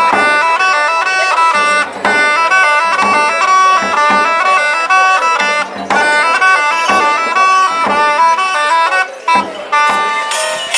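Street performance of early music: a reedy wooden pipe plays a lively stepping tune over steady strokes on a side drum. Near the end the music changes to a different piece with tambourine jingles.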